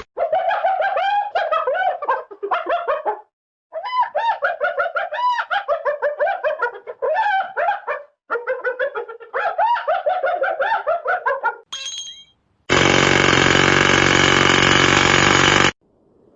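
Cartoon sound effects: rapid, high-pitched chattering squeaks that bend up and down in pitch, in bursts of a few seconds with short breaks. Near the end comes a brief ringing tone, then about three seconds of a loud, steady buzzing hiss that cuts off suddenly.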